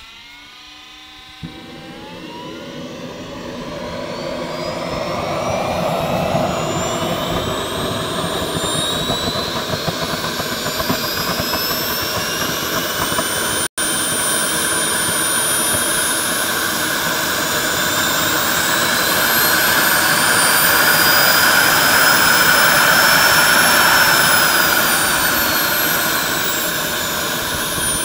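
JetCat 120 model gas turbine on an RC glider starting up. A rising whine comes first, then the burner lights with a rush about a second and a half in. The noise grows as the turbine spools up, its high whine climbing steadily for some twenty seconds and falling back near the end.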